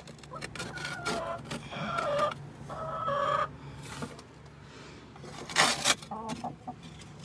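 Hens calling: a few drawn-out clucks in the first half. A little over five seconds in comes a short, loud scrape of a metal scraper against the nest box floor.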